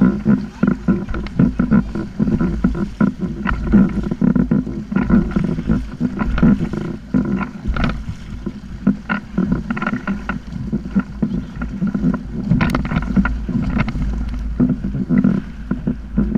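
Water slapping and splashing against a sit-on-top kayak's hull as it moves through choppy water, in many irregular short slaps over a steady low rumble of wind on the microphone.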